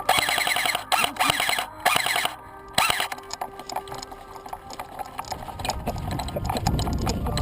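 Airsoft automatic electric gun firing on full auto: four bursts of rapid clatter in the first three seconds, the first the longest, then a low rumbling noise builds over the last few seconds.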